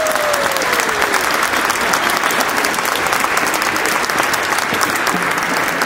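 Audience applauding, many hands clapping steadily, with one voice holding a falling call in the first second.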